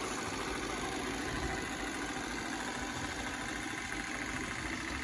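Robot vacuum cleaner running: a steady motor and brush whir.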